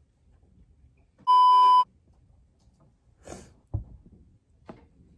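A loud, steady electronic bleep tone, about half a second long, a little over a second in, of the kind added in editing. A few faint clicks and knocks follow.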